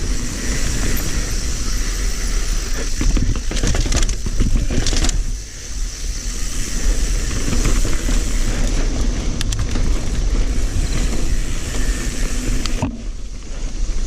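Mountain bike ridden over a rough dirt trail: steady wind rumble on the microphone, tyre noise and the bike rattling and knocking over bumps.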